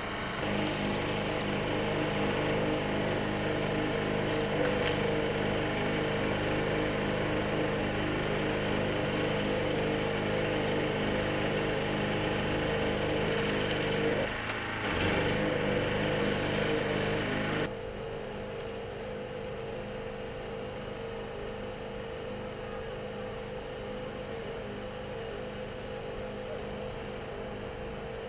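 A portable generator's engine running steadily, with a hand-held power tool running loudly over it for most of the time. The tool briefly eases off about halfway through and then stops, leaving only the generator's hum.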